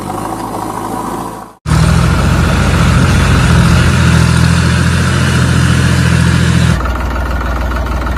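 Tractor engine running steadily with a low, even note. It cuts out abruptly about a second and a half in and comes back louder, then shifts to a different, slightly quieter running sound near the end.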